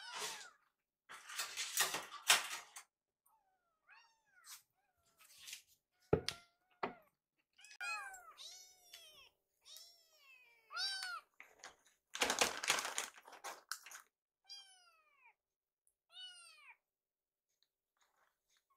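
Young kittens mewing again and again in short, high calls that rise and fall, begging while their food is being prepared. Bursts of noise at the start and about twelve seconds in, and a sharp knock about six seconds in.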